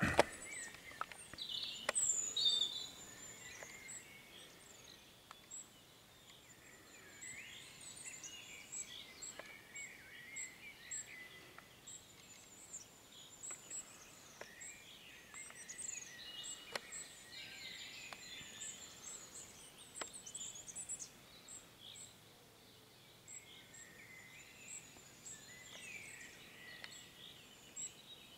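Faint wild birdsong: scattered chirps and short calls, with a thin, very high note repeated a couple of times a second. A few knocks in the first couple of seconds.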